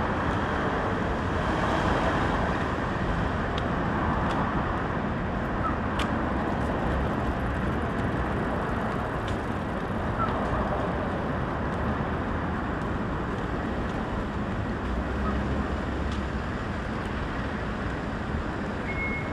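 Steady city street traffic noise from passing road vehicles, with a few faint clicks. A repeated beep starts near the end.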